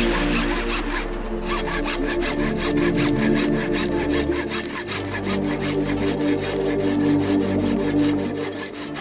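A saw cutting through PVC pipe in quick, even back-and-forth strokes, with background music underneath.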